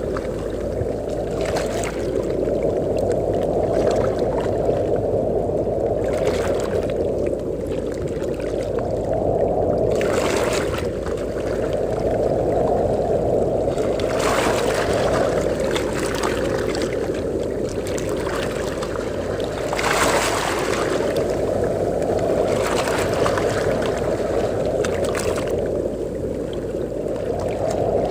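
Wind and ocean waves at the shore: a steady low rush that swells and eases every few seconds, with several brief hissing bursts.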